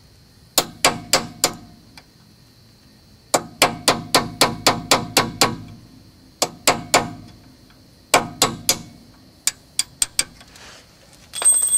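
Hammer striking a pin punch to drive out a brake caliper's pad retaining pin: several runs of quick, sharp metal-on-metal blows with short pauses between them. Near the end there is a brief high metallic ring.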